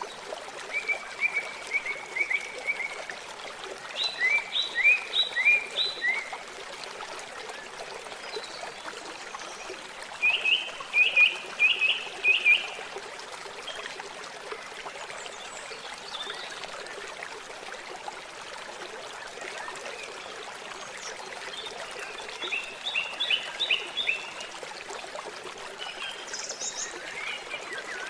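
Water running steadily, with short series of repeated high chirping calls from small animals rising over it in several groups, the loudest about 4 and 10 seconds in.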